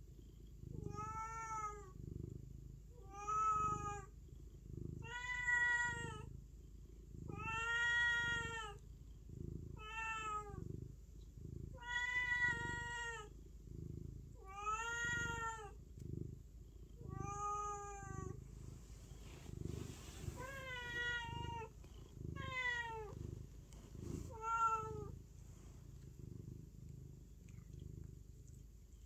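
A ginger tabby domestic cat meowing again and again, about eleven meows roughly two seconds apart, each rising then falling in pitch, stopping about 25 seconds in. A low rhythmic purr runs underneath.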